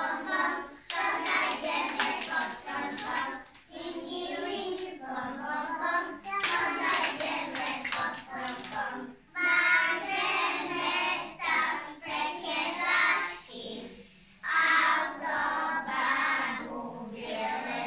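A small group of young children singing a song together, with hand claps among the singing.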